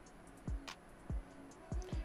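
Quiet background music with a soft, regular low thumping beat, about one beat every 0.6 seconds, and light ticks between the beats.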